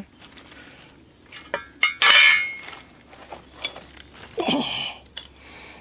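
Metal clinks and a brief harsh metal-on-metal scrape from handling steel wheel hub assemblies, the loudest about two seconds in.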